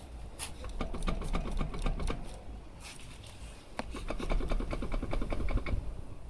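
Rapid, regular knocking from a Kia Sportage's wheel, about seven knocks a second, in two runs of about two seconds each, over a low rumble. The cause of the knock is unknown to the owner.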